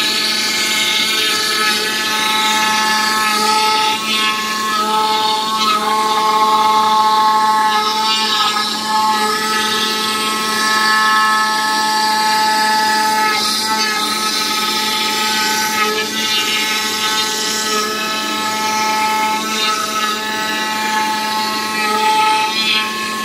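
CNC oscillating knife foam cutting machine running as it mills and cuts EVA foam: a steady machine whine made of several tones that shift every second or two as the head moves, over a hiss from the cutting.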